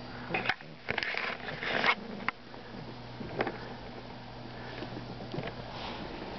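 A dog sniffing in a few short, breathy bursts over the first two seconds, followed by a couple of soft clicks.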